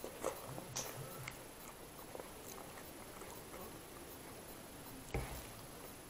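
Quiet chewing of a mouthful of rajma chawal (kidney beans and rice) eaten by hand, with a few soft wet mouth clicks and smacks in the first second or so. A single dull knock about five seconds in.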